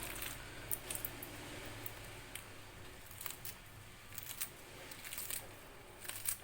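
Scissors snipping Indian borage (húng chanh) leaves into small pieces: short, crisp snips at an irregular pace, roughly one or two a second.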